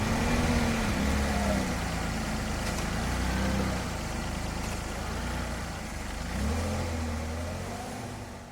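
Daihatsu Atrai van driving, its engine note rising and falling several times over steady road rumble.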